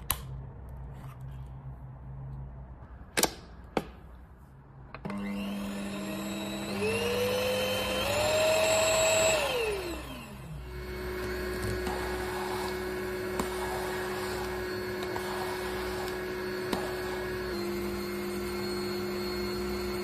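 A few clicks as a brush head is fitted to the hose, then the pet-grooming vacuum's motor starts about five seconds in. Its whine rises in steps, falls away about halfway through, and settles into a steady run.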